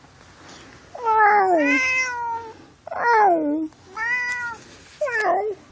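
Domestic cat meowing four times in a row. The first meow is long and drawn out, the next two fall in pitch, and the last is short.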